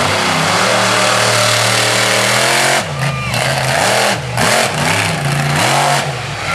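Monster truck engine held at full throttle at a steady high pitch for nearly three seconds, then revving up and down in several quick swells as the truck launches into a jump over crushed cars.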